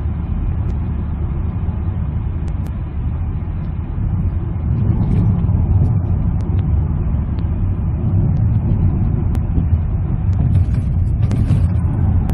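Highway road noise inside the cabin of a 2007 Toyota Sienna minivan: a steady low rumble of tyres and engine, getting a little louder about five seconds in. A handheld meter reads it at about 70 to 73 dBA.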